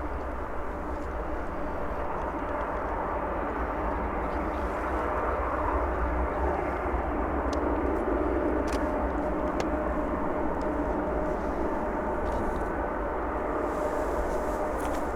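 Boeing 747-400 freighter's four turbofan engines running steadily: a low rumble with a steady whine, swelling slightly midway.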